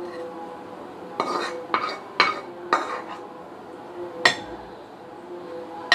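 Metal kitchen utensils clinking against pots and dishes: a spoon knocking on cookware in a series of sharp clinks, about six of them spread over a few seconds.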